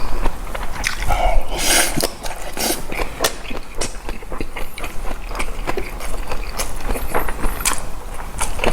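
A person chewing a mouthful of boiled pork and fresh napa cabbage kimchi, with irregular crisp crunches and wet smacking clicks and a louder crunchy stretch about a second in.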